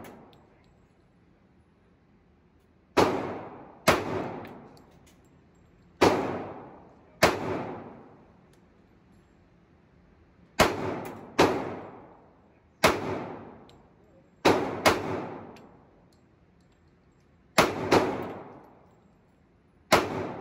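Glock pistol being fired in an indoor range: about a dozen sharp shots at an uneven pace, some in quick pairs, each followed by a short ringing echo off the range walls.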